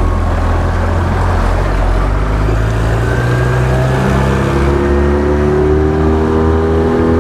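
Yamaha outboard motor running under throttle and pushing a small fishing boat along at speed, its pitch climbing steadily through the second half as the boat speeds up. Water rushes past the hull.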